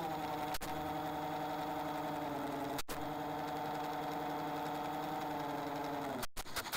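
Model airplane's motor and propeller running steadily at flight power, heard from a camera mounted on the craft, with its pitch sagging slightly a couple of times as the throttle eases.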